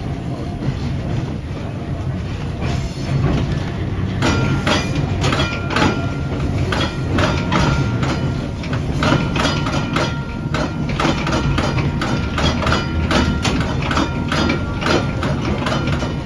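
Railcar running on the track with a steady low noise. From about four seconds in it is joined by many irregular clicks and rattles and a faint, on-and-off high squeal.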